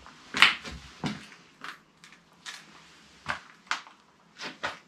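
Footsteps scuffing and crunching over grit and debris on a basement floor: a string of about eight uneven crunches, the first the loudest.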